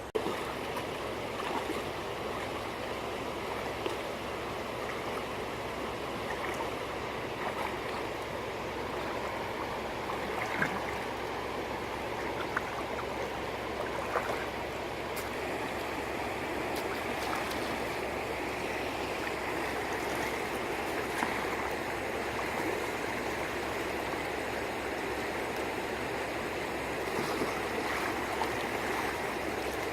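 Steady rush of running water, with small splashes and clicks now and then.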